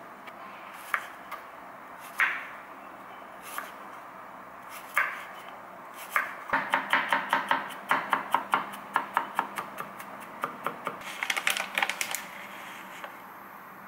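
Kitchen knife chopping garlic cloves on a wooden cutting board: a few spaced strikes, then a quicker run of knife taps on the board at about four a second, stopping near the end.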